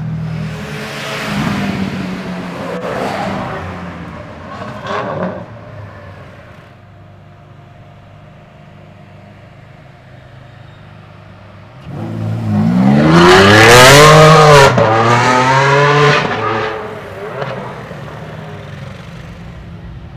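Ferrari 599 V12 with a Mansory sport exhaust accelerating hard, very loud, its note climbing in pitch, dipping briefly and climbing again before fading as it pulls away. Before this, quieter engine sounds and revs from other supercars, then a lull.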